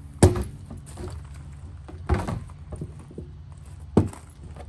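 Three sharp clacks, about two seconds apart, from a hand working the latch on a SaltDogg spreader's plastic hopper lid.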